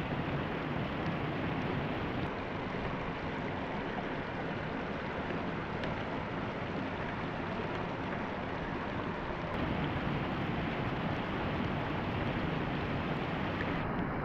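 Water pouring over a low concrete weir in a steady rush.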